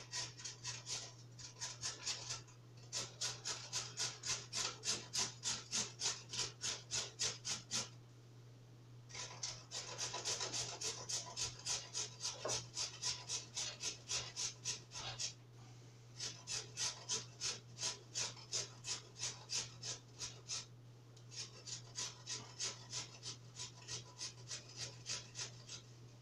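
Rapid, rhythmic rasping strokes from hand work at a kitchen counter, about five a second, in runs of a few seconds broken by brief pauses, over a steady low hum.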